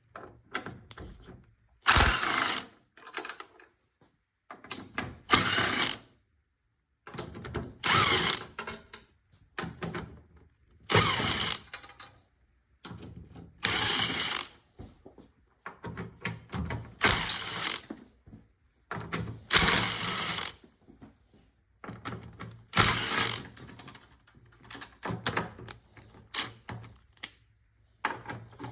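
Hand ratchet wrench clicking in short spells about every three seconds, with small clanks of tools and parts in between, as bolts are worked out of the radiator support.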